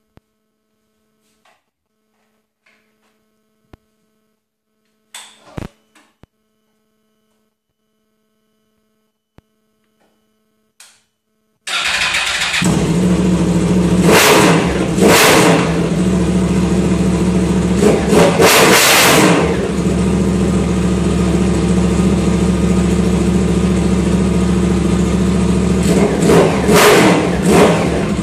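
Yamaha R1 (RN22) crossplane inline-four engine, running with no exhaust system fitted, starting about twelve seconds in on its first start after an accident rebuild. It runs loud and steady, with several short revs. Before it starts there are only a few faint clicks.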